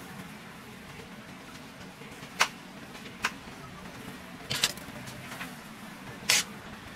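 A handful of sharp clicks and taps, about a second apart and loudest near the end, as test-wire ends are pushed onto the pins of a Bosch EDC17 engine control unit's connector. A low steady hum runs underneath.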